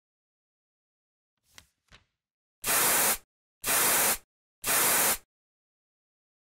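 Three short bursts of spray-paint hiss, each about half a second long and a second apart, after two faint clicks.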